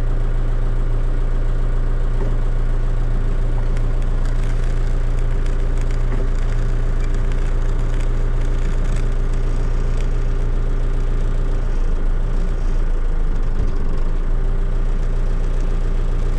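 Volvo BL70 backhoe's diesel engine idling steadily.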